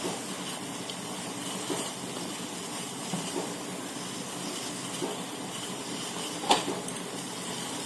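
A pan of water and spices boiling over a gas flame, making a steady hiss. There is one short, sharp tap about six and a half seconds in.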